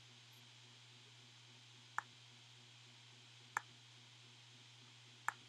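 Three single computer clicks, each about one and a half seconds after the last, over a faint steady low hum.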